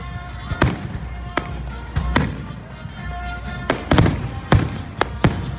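Fireworks display: aerial shells bursting in a string of about eight sharp bangs, several coming in quick succession in the second half.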